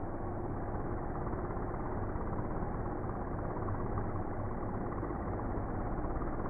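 DJI Mini 2 drone's propellers spinning on the ground before takeoff, with the audio slowed down to a low, steady beating that sounds like a helicopter.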